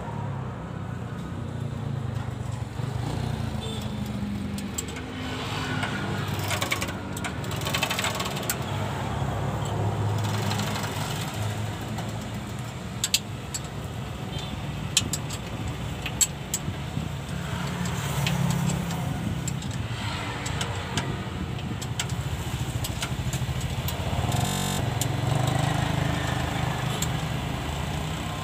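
Low motor-vehicle rumble that swells and fades several times, with a few sharp clicks of hand tools on the clutch slave cylinder's bolts near the middle.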